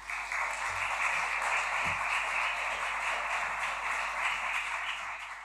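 Audience applauding, a steady clapping that tails off near the end.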